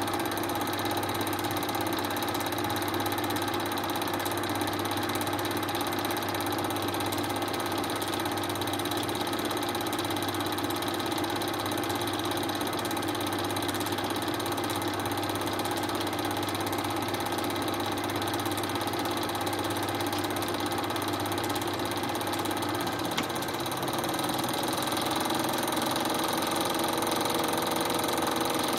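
Film projector running with a steady mechanical whir. About 23 seconds in there is a single click, and the tone shifts a little after it.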